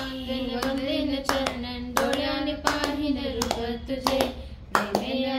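Rhythmic handclapping, about three claps a second, keeping time with a devotional aarti hymn being sung.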